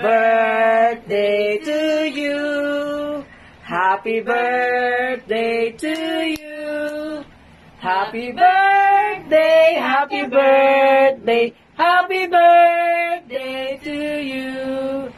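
A man and a woman singing a song together, possibly joined by a small child, in phrases of held notes with short breaths between them.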